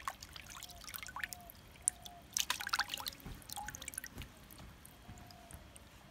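Water splashing and dripping as hands rub and rinse pieces of skinned trigger fish in a metal basin of water, with the busiest splashing about two and a half seconds in.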